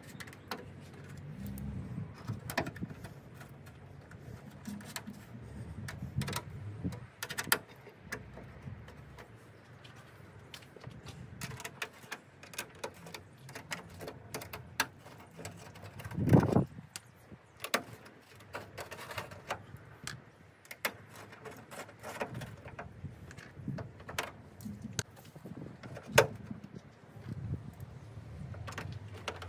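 Scattered small clicks, taps and scrapes of a hand screwdriver and plastic grille parts as bolts are screwed back in on the underside of a car bonnet, with one louder knock about sixteen seconds in.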